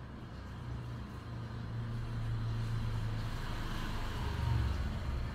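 Low engine rumble of a passing motor vehicle, building up and peaking about four and a half seconds in before easing off.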